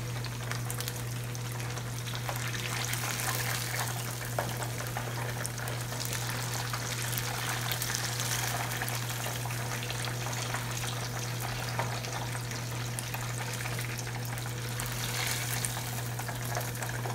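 Chicken drumsticks deep-frying in hot vegetable oil: a steady sizzle and crackle of bubbling oil over a steady low hum. The pieces are done, browned and crisp, and are being lifted out of the oil.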